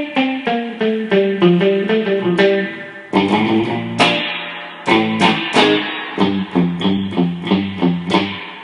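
Squier Jaguar electric guitar played clean through a Boss Fender reverb pedal's modeled spring reverb, with no slapback echo. It plays a descending line of picked single notes, then about three seconds in a run of hard-picked chords, and the last chord rings out into a reverb tail near the end.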